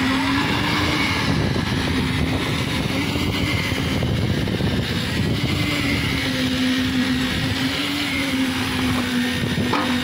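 Engine of a lift concrete mixer machine running steadily, its pitch wavering slightly.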